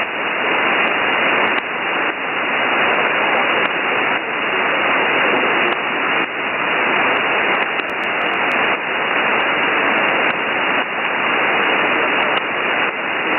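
Steady shortwave static from an HF receiver in upper-sideband mode on an empty aeronautical channel between transmissions: a loud, narrow hiss with no highs, dipping slightly in level now and then.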